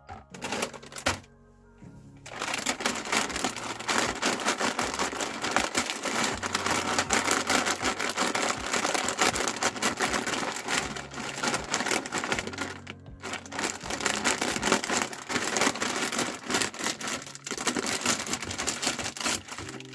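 Meat grinder crushing something brittle: a dense, continuous crackling and crunching that starts about two seconds in and breaks off briefly once, over a steady low hum. Background music plays along with it.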